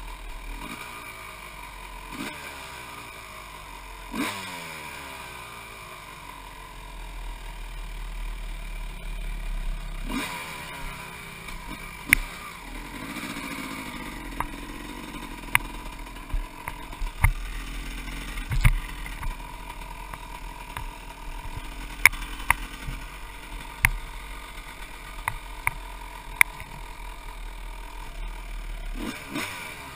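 1996 Honda CR250's two-stroke single-cylinder engine being ridden hard, revving up through the gears and dropping back between shifts. Sharp clacks and knocks come through the second half.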